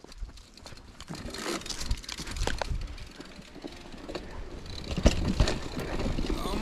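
Trek mountain bike rolling down a dirt single track: tyre noise and bike rattle with several knocks over bumps, about five seconds in, growing louder as it gathers speed.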